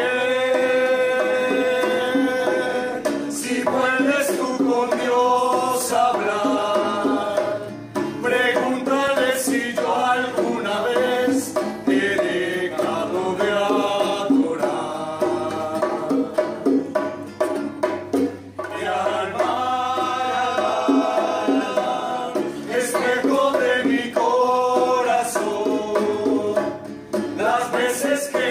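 Several men singing a song together to a strummed acoustic guitar and a hand drum, in phrases broken by short pauses every few seconds.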